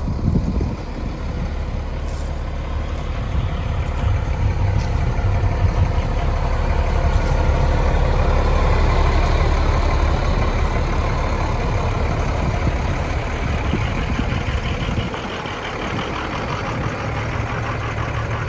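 International DT466E inline-six diesel engine idling steadily. Its exhaust note grows louder toward the middle, where the muffler is close by, then eases off.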